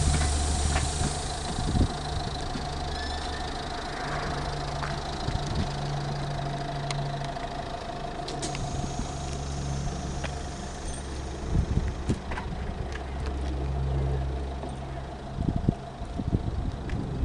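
Neoplan Tourliner coach's diesel engine idling with a steady low hum and a steady whine above it. A hiss fades out in the first couple of seconds, and a few short knocks come in the second half.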